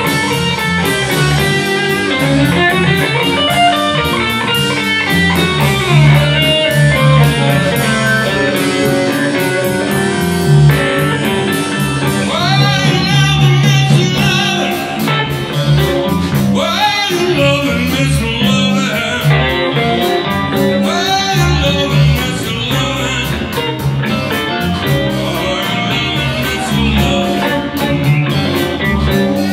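Live blues band playing: electric guitars over bass guitar and drums, with steady cymbal ticks.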